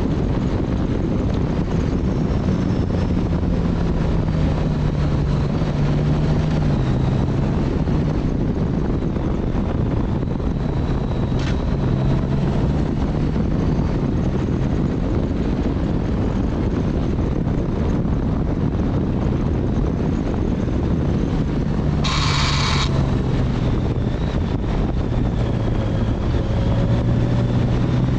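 Motorcycle riding at speed: wind rush over a low engine hum whose pitch rises and falls with the throttle. A short, higher-pitched sound cuts in briefly about three-quarters of the way through.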